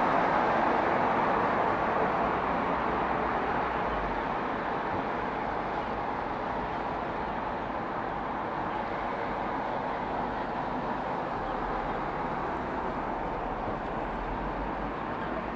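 Steady outdoor background noise, an even rushing hiss with no clear tone or rhythm, easing a little over the first few seconds.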